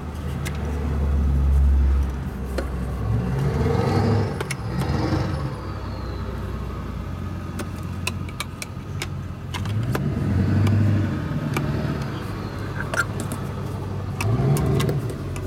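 Motor vehicles driving past one after another, three times, each engine note rising and falling as it goes by. Scattered sharp plastic clicks come from vacuum attachments being fitted together.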